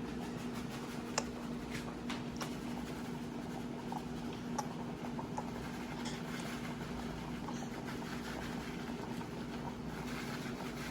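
Steady low kitchen hum with a few light clicks and scrapes of a spoon stirring cream sauce in a pot, mostly in the first few seconds.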